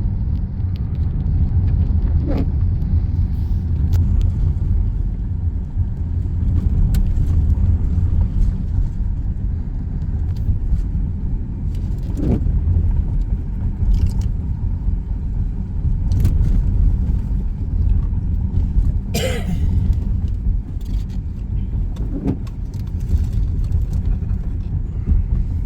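Steady low rumble of a vehicle driving slowly over a frozen, icy gravel road, heard from inside the cabin, with a few brief sharp knocks and ticks scattered through it, the loudest about two-thirds of the way in.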